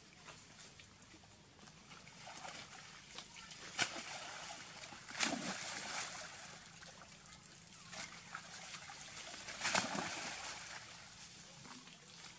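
Macaques dropping from overhanging branches into a river: three loud splashes, about four, five and ten seconds in, with water sloshing and churning between them as the monkeys swim.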